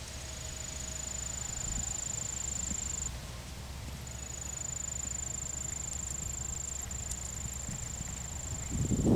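A horse's hooves walking on a sand arena, soft and dull, over a low background rumble. A steady high-pitched whine runs above it, stopping about three seconds in and returning a second later.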